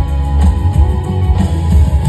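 Live rock band playing an instrumental passage through a concert PA, with electric guitar, heavy bass and drums.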